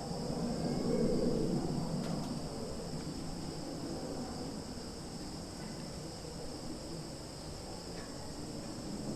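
Summer forest insect chorus: a steady, even high-pitched trill, with a low rushing noise underneath that swells briefly about a second in.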